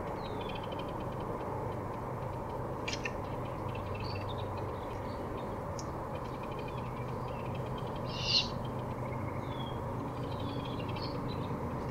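Great horned owl calling, with one short raspy call about eight seconds in, amid scattered high songbird chirps over a steady low hum.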